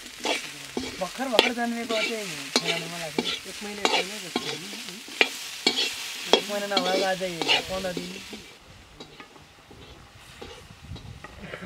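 Metal ladle scraping and clanking against a large iron wok while sliced potatoes are stirred, frying with a sizzle. The stirring and sizzle stop about eight and a half seconds in, leaving quieter, sparser sounds.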